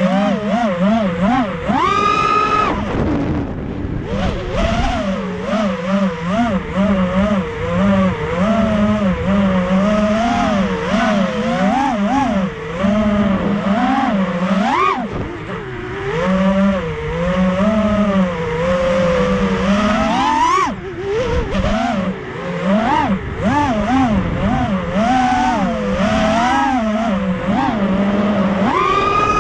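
Racerstar 2205 2300 kv brushless motors of a GEPRC VX250 FPV racing quadcopter, spinning DAL 5045 three-blade bullnose props, whining with a pitch that wavers constantly with the throttle. There is a sharp rising whine from a throttle punch about two seconds in and again about two-thirds of the way through.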